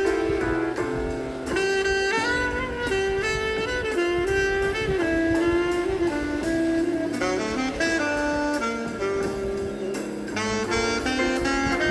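Background jazz music with a saxophone playing a smooth melody of held notes over a steady accompaniment.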